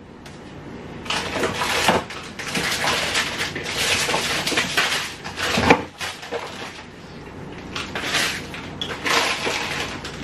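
Off-camera rummaging in a kitchen: rustling and clattering of things being moved about, with sharp knocks about two seconds in and just before six seconds in.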